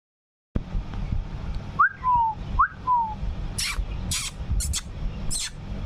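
Two clear whistles, each a quick upward note followed by a lower falling note, then budgerigars chirping sharply about once every half second, over a low rumble.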